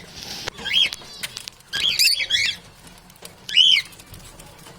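A parrot giving short whistled calls that rise and fall in pitch: one about a second in, a quick run of three or four near the middle, and one more later.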